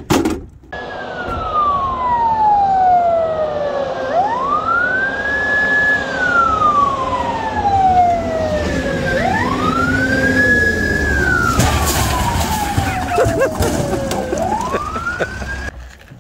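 A siren wailing: its pitch climbs over about a second or two, holds briefly at the top, then sinks slowly over three or four seconds, cycling about three times before cutting off abruptly near the end. Some light clatter sounds under it in the last few seconds.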